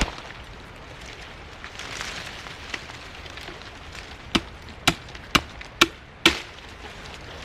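Chopping: five sharp, evenly spaced strikes, about two a second, starting a little past halfway.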